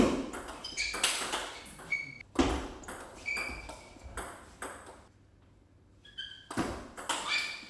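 Table tennis ball being hit back and forth in a rally: sharp, ringing clacks off the rackets and the table, two or three a second. The hits stop for about a second a little past the middle, then start again.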